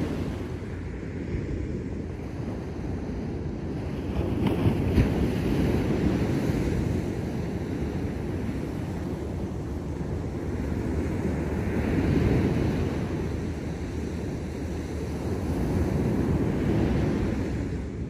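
Ocean waves breaking and washing up the beach, the surf swelling and falling back several times. The loudest break comes about five seconds in, with further surges around twelve seconds in and near the end.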